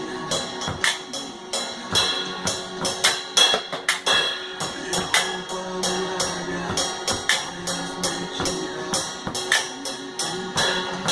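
Percussion beaten on tin cans over a recorded worship song's instrumental backing, with quick, regular strikes.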